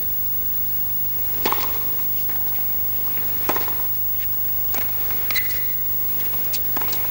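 Tennis rally on a hard court: a sharp racket-on-ball strike about a second and a half in and another two seconds later, then lighter hits and a short high squeak, over a steady crowd hum.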